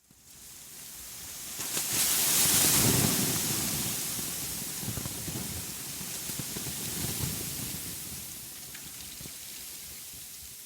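A rushing noise, with some low rumbling, that starts suddenly, swells over the first two to three seconds and then slowly fades.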